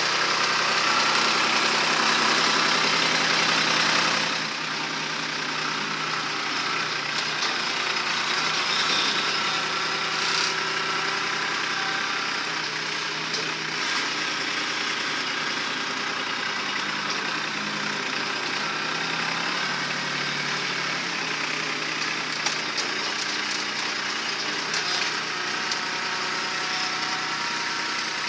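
Kubota B2261 compact tractor's three-cylinder diesel engine running steadily while the front loader digs and pushes dirt. It is louder for about the first four seconds, then settles to a slightly lower, even drone.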